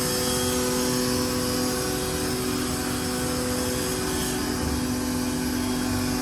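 CNC router running steadily, a constant whine of several steady tones over a hiss, resurfacing a granadillo slab to remove the tear-out left by the planer.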